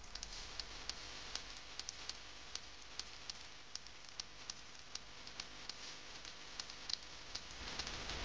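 Faint hiss with scattered sharp clicks, two or three a second at uneven spacing. Near the end, water starts pouring from a steel cup onto sugar in a steel bowl.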